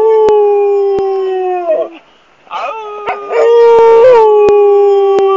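Chocolate Labrador howling in long, held, slowly falling howls. The first trails off about two seconds in, and after a short breath a second rises and carries on. It is separation howling for an owner who has gone out on a boat.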